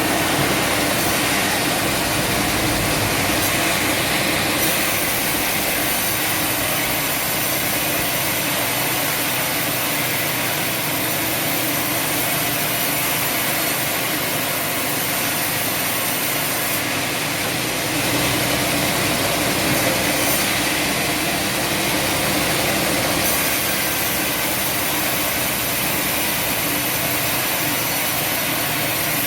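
Sawmill machinery running steadily, a dense mechanical noise.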